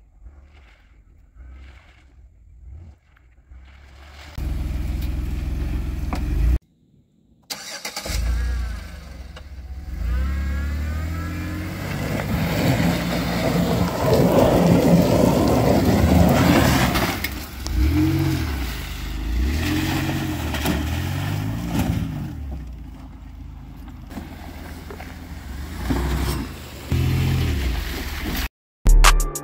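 Chevrolet Uplander minivan's engine driving off-road, revving up and dropping back several times, with a couple of sudden breaks in the sound.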